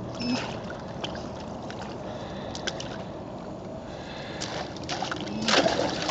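Labrador wading in shallow, icy pond water, sloshing and splashing, with scattered sharp clicks. A loud splash about five and a half seconds in as the dog lunges out of the water onto the bank.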